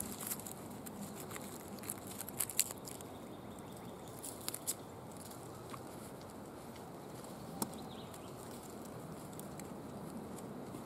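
Cloth stuff sacks being handled and shifted on a wool blanket: soft rustling with a few sharp crackles, a cluster about two seconds in, another around four and a half seconds, and a single one past the middle.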